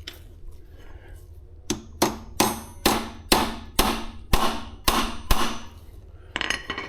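A hammer striking metal about nine times, roughly two blows a second, with a ringing after each, knocking the e-bike's rear axle down into the frame's dropout. A shorter scrape of metal follows near the end.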